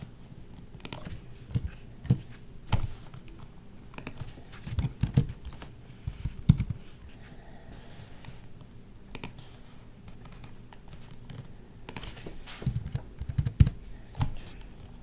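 Typing on a Microsoft Wedge Bluetooth keyboard: irregular keystrokes in short bursts, with a lull in the middle.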